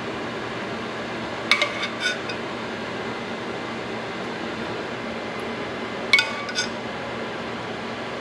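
A metal spoon clinking against a stainless steel saucepan and plates while sauce is spooned out: two short groups of a few quick ringing taps, one about a second and a half in and one about six seconds in, over a steady background hum.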